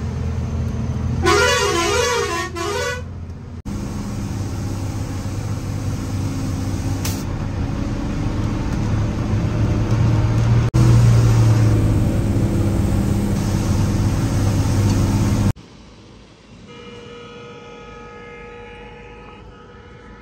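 Truck engine running steadily while crawling in traffic, with a truck horn sounding a quick repeating multi-note pattern for about two seconds near the start. About fifteen seconds in the sound drops suddenly much quieter.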